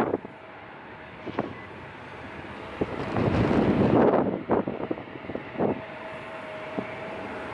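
Gusty wind buffeting the microphone, strongest about three to four seconds in, over the steady noise of a jet airliner's engines.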